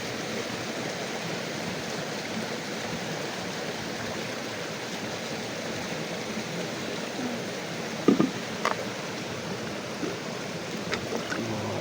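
River water flowing steadily, an even rushing hiss, with a couple of short knocks about eight seconds in.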